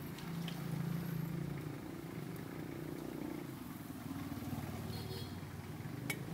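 A motor vehicle engine running steadily nearby as a low hum, louder for about a second shortly after the start, with a single sharp click near the end.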